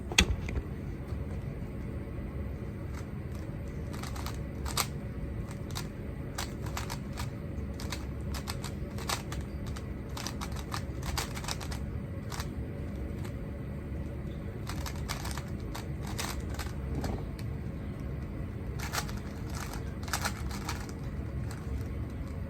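Scattered light plastic clicks and clacks, single or in quick little clusters, over a steady low hum.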